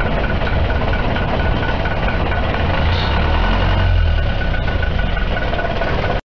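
A rail shunting vehicle's engine running with a steady low throb, a little louder about three to four seconds in, then cutting off suddenly at the end.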